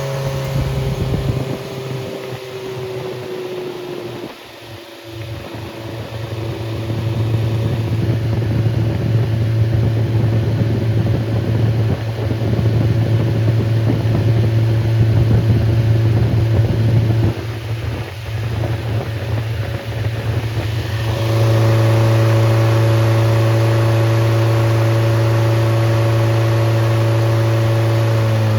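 Freshly rebuilt Triumph Spitfire 1500 inline-four engine running above idle during its test run. Its speed falls over the first few seconds and then runs unevenly. About two thirds of the way through it settles into a steady, louder higher speed.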